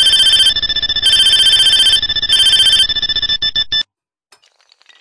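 Loud electronic ringing tone like a phone ringtone: a rapid trill of several high steady pitches, with a still higher layer coming in three times. It cuts off suddenly near the end and gives way to faint, scattered tinkling clicks.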